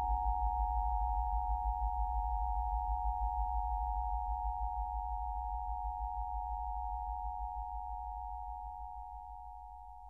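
Synthesized sci-fi particle-beam sound effect: a steady cluster of three close high electronic tones over a deep, rapidly fluttering low drone, slowly fading out and dropping away more steeply near the end.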